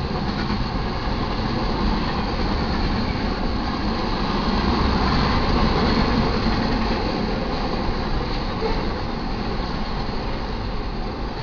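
Intermodal freight train's well cars carrying trailers and double-stack containers rolling past: a steady rumble and rush of steel wheels on rail, swelling a little in the middle.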